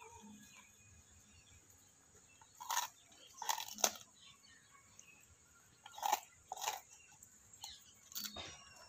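German Shepherd biting and chewing raw sugarcane stalks, the fibrous cane cracking in short crunches that come in clusters about three, six and eight seconds in.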